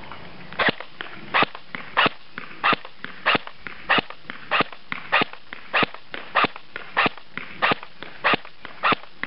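E&C SR15 KAC battery-powered airsoft rifle firing single shots at a steady pace: about fourteen sharp shots, roughly three every two seconds, with fainter ticks between them.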